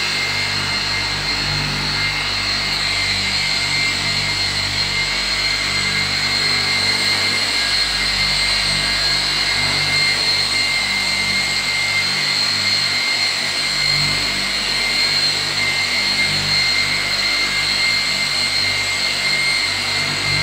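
Corded electric car polisher running steadily with a high whine, its pad buffing a car's headlight and front bumper.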